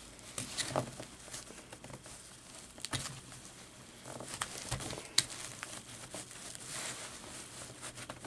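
Nylon webbing of a MOLLE chest rig rustling and scraping as a plastic attachment clip is worked into its loops by hand, with several sharp clicks of plastic.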